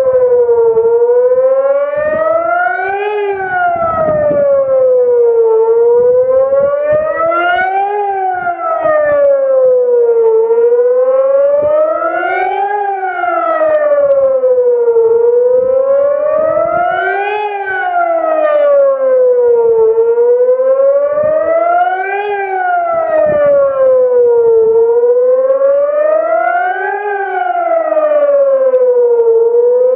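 Sonnenburg SES2-500-360° electronic siren sounding the German 'Warnung der Bevölkerung' civil-protection warning signal. It is a wailing tone that rises and falls about every five seconds, with a fainter lower tone gliding along beneath it.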